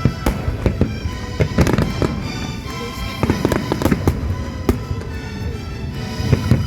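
Fireworks shells bursting in quick succession, many sharp bangs and crackles, over music playing along with the display.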